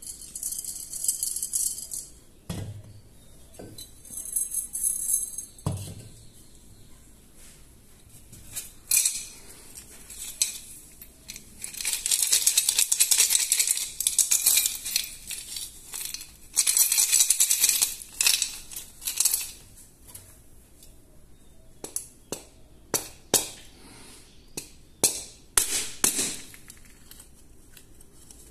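Coins rattling inside earthenware clay money banks shaken by hand, in several bouts, the longest from about nine to nineteen seconds in. Two low thuds as banks are set down on the table early on, and a run of sharp knocks in the last few seconds.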